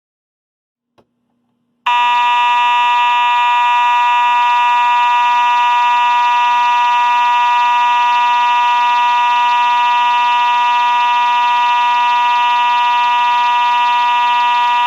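Simplex 4903-9101 + 2901-9838 fire alarm mechanical horn sounding one continuous, loud, buzzy tone. A click and a faint hum come about a second in, and the horn starts about two seconds in.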